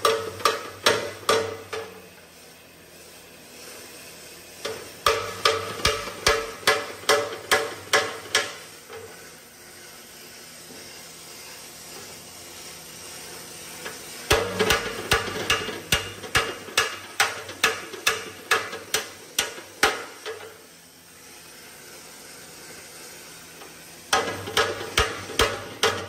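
Hand hammer striking the steel edge of an Abbott self-propelled gun's hull, with a hand tool braced against it. The blows come in four runs of about three a second, separated by pauses of a few seconds, and each blow rings like a bell.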